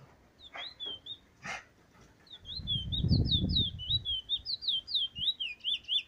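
Caged bullfinch singing: a quick run of short whistled notes, then a continuous string of downward-sliding notes at about four a second through the second half. A low rumble sits under the song around the middle.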